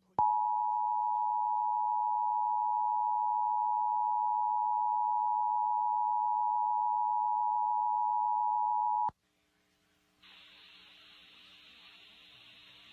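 Emergency Alert System attention signal: a steady two-tone alarm tone of 853 and 960 Hz, held for about nine seconds, that cuts off abruptly. It announces an emergency alert broadcast, here a test of the Amber Alert system. A faint hiss follows about a second later.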